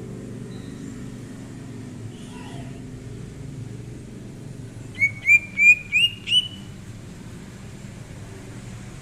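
Green leafbird (cucak ijo) giving a quick run of five loud, short, rising notes about five seconds in, with a few faint calls earlier, over a steady low background hum.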